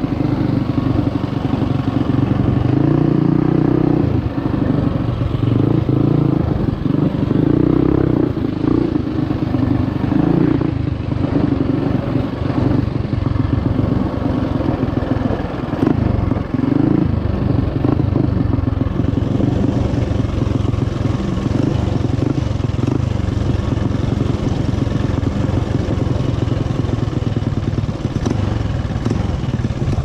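Small single-cylinder four-stroke engine of a Trailmaster MB200 mini bike running under load on a dirt trail, its note rising and falling with the throttle. The engine is louder in the first half and eases off later, with rattling from the bike on the rough, rocky track.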